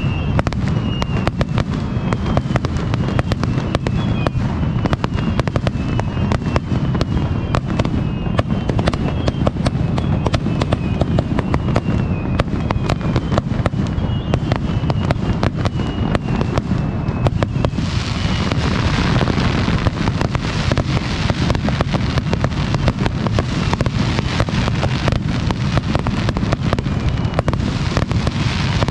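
Dense barrage of aerial fireworks, many bangs in rapid succession with no gaps. Short falling whistles repeat through the first half, and a loud crackling hiss joins about two-thirds of the way in.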